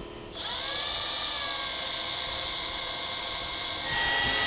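Cordless drill whining steadily as it bores access holes into the underside of a light aircraft's tail section. It starts about a third of a second in and gets louder near the end.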